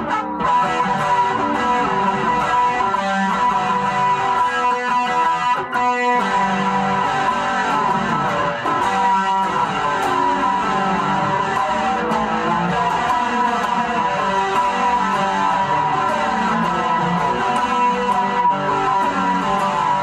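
Guitar played continuously, a riff of changing notes without a pause; the player calls it a little sloppy.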